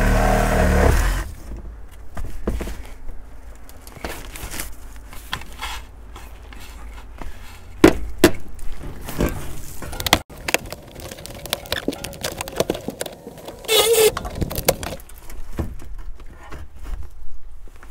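A power tool running steadily, cutting off about a second in. Then scattered metal clunks, knocks and rattles as rusted car seats are wrenched free and lifted out, with a few sharper knocks along the way.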